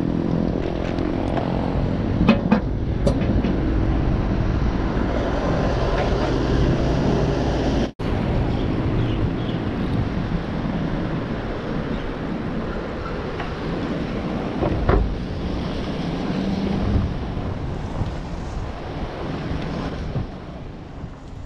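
Wind rushing over the microphone of a moving bike ride, a steady low rumble. It drops out abruptly about eight seconds in and picks straight up again.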